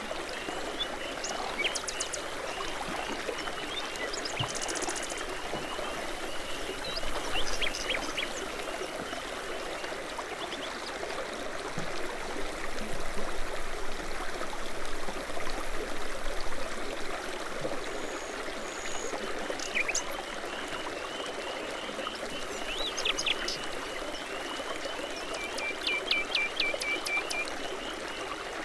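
Babbling brook: water running and trickling steadily, with songbirds giving short chirps and trills here and there.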